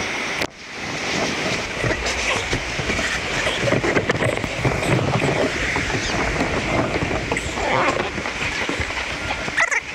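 Uneven rattling clatter of an inflatable catamaran being moved over wooden deck planks, full of small knocks.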